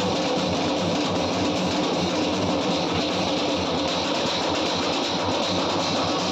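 Procession drum band beating large stick-played drums in a dense, fast, loud, unbroken rhythm, with the noise of a dancing crowd mixed in.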